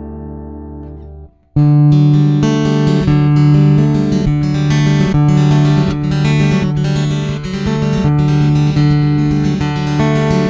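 Martin GPC-13E acoustic-electric guitar played through a Fender Mustang Micro amp. A ringing chord fades and is cut off about a second in; then a stream of quickly picked notes rings over a held low bass note.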